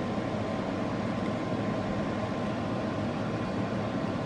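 Steady low hum and hiss of room background noise, with no distinct sounds standing out.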